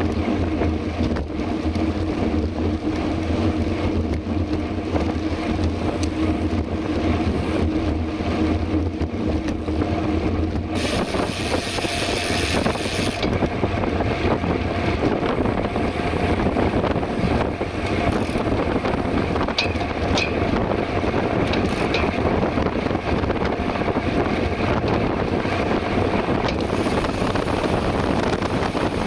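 Wind rushing over the microphone and tyre noise from a mountain bike riding along a road. A steady low hum in roughly the first ten seconds gives way to a broader rush, with a short high hiss about eleven seconds in and a few light ticks around twenty seconds.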